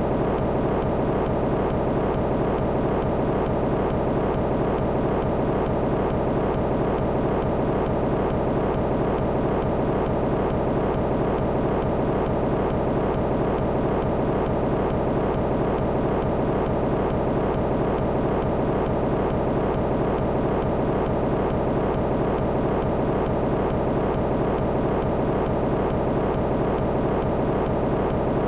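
A steady, dense droning noise with no change in level, with a fast, even pulse running through it.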